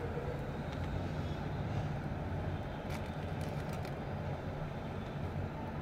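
Steady low background rumble, with a few faint light clicks about three seconds in.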